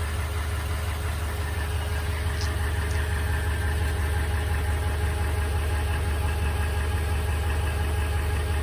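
2020 Toyota Tundra's 5.7-litre V8 idling steadily, with the tick or knock that the owner is trying to identify.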